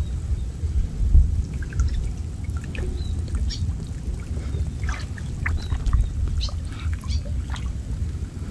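Water pouring and dripping off a wet fishing net as it is hauled up out of a river, with small splashes at irregular moments over a steady low rumble.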